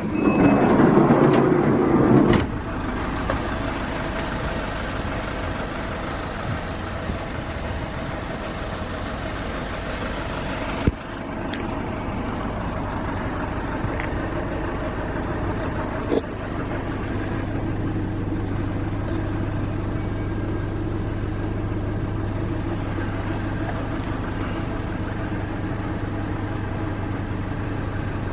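Nissan NV350 Caravan's 2.5-litre diesel engine, loud for about the first two seconds as it starts up, then settling to a steady idle. Two short clicks come partway through.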